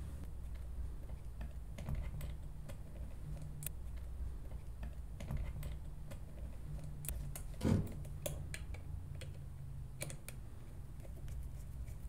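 Light plastic clicks and taps as hands fit a micro switch and its wires back into a plastic trolling-motor foot pedal housing, with one louder knock about two-thirds of the way through, over a low steady hum.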